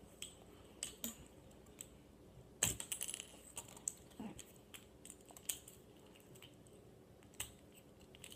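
Scattered light clicks and taps at irregular intervals from a fidget spinner being handled and set up for a trick, with one louder knock about two and a half seconds in.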